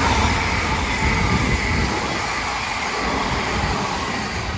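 Train rumbling along the rails, a loud rumble with a faint high whine, loudest at the start and slowly easing off.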